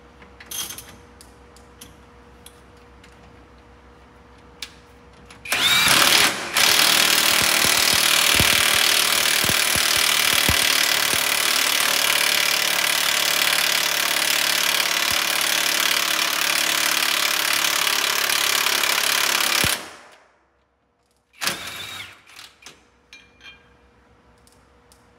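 Impact wrench hammering steadily for about fourteen seconds, with a short break just after it starts, driving a kingpin press to push a worn kingpin out of a bus front axle knuckle. A moment after it stops there is one more short burst of the wrench, then a few light tool clicks.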